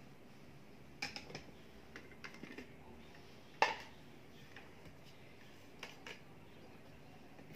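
Scattered light clicks and knocks of a KitchenAid mini food chopper's plastic bowl and lid being handled on the counter, the sharpest knock about three and a half seconds in. The chopper's motor is not running.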